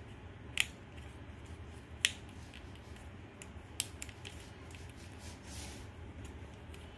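A few sharp, sparse clicks and light taps as a small screw is handled and fitted against the string trimmer's metal shaft coupler, over a faint steady low hum.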